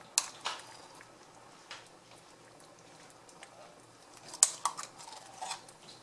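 A few sharp clinks and taps of a metal spoon against cookware, two near the start, one a little later, and the loudest cluster of three or four just past four seconds in.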